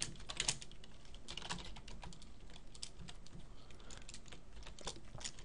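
Typing on a computer keyboard: irregular keystrokes, some in quick runs.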